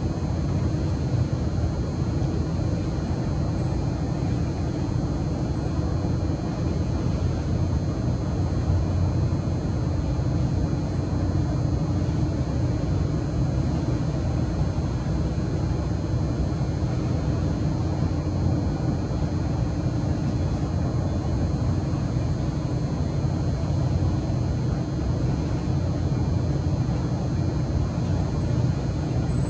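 Steady low rumbling background noise that never changes, with no distinct events.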